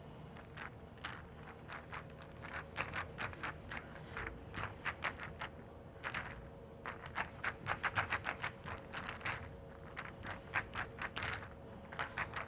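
Pool balls rolling and clicking against one another: irregular sharp clacks, sometimes in quick rattling runs, loudest about eight seconds in.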